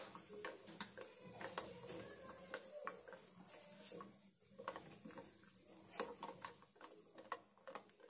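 A spoon clinking and scraping against a glass bowl while stirring gram flour into buttermilk to break up the lumps. The light clicks come irregularly, two or three a second.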